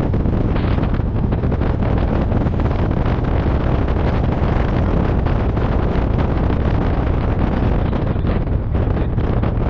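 Wind buffeting the microphone of a moving open trike, a steady low rumbling rush with the trike's running noise blended in.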